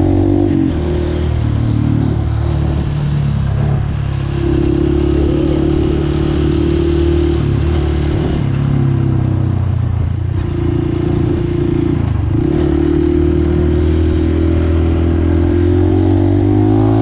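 Dirt bike engine running at road speed, heard from the rider's seat. The engine note holds steady, dips briefly three times in the middle, then climbs steadily over the last few seconds as the bike accelerates.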